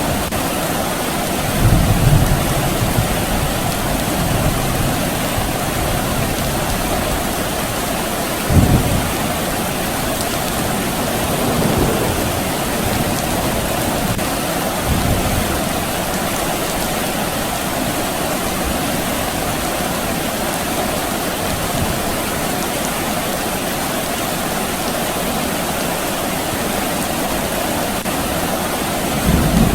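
Steady rain falling, with a few short low rumbles of distant thunder: the strongest about two seconds in and just before nine seconds, and another near the end.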